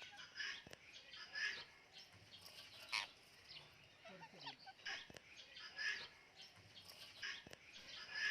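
A parrot giving short, quiet chirps and calls, roughly one a second.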